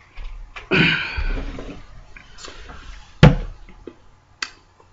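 A single sharp knock about three seconds in, after a short noisy sound about a second in that fades away, with a few faint clicks near the end.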